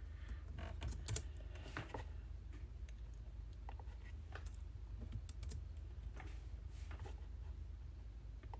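Typing on a computer keyboard: irregular key clicks, with a quick run of keystrokes about a second in, then scattered single presses. A steady low hum runs underneath.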